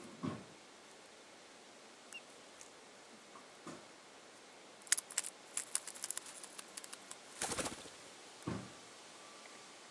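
Adult American robin moving on its nest: the straw rustles and scrapes, with a run of sharp clicks and scratches in the middle and a few soft thumps. A newly hatched chick sits among the eggs below it.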